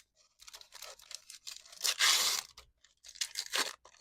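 Crinkling and tearing of card packaging being handled, in ragged bursts, the loudest crunch about two seconds in.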